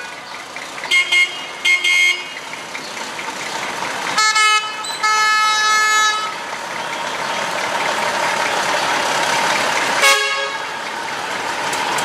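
Vehicle horn tooting: two short toots, then a longer blast of about two seconds around the middle, and one more short toot near the end. Under it, the steady running of slow-moving vintage tractor and truck engines.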